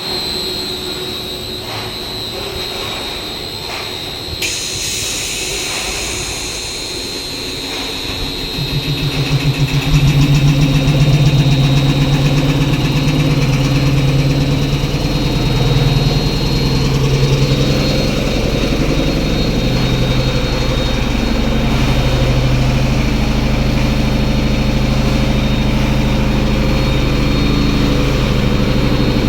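Screw compressor starting up: a low hum builds about eight seconds in and settles after about ten seconds into a loud, steady running drone that holds. Before it, a steady high whine and a sharp click near four seconds.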